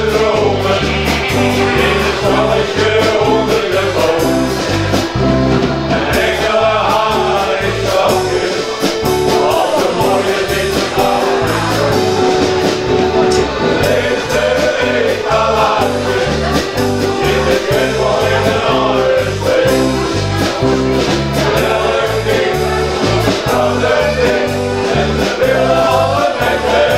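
Men's shanty choir singing over instrumental backing with a steady beat.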